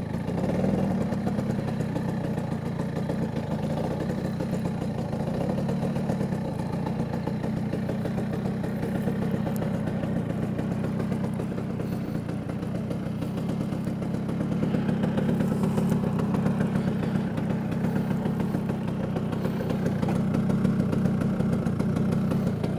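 Vespa scooter's P200E two-stroke 200cc engine running steadily at low revs. It picks up a little about two-thirds of the way through and again near the end.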